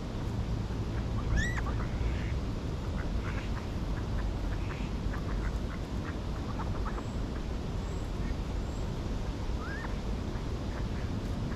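Ducks quacking in short scattered calls, with a couple of higher arched bird calls, over a steady low rumble.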